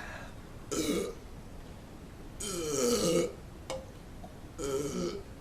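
A man belching three times after drinking beer: one about a second in, a longer one of nearly a second in the middle, and a shorter one near the end.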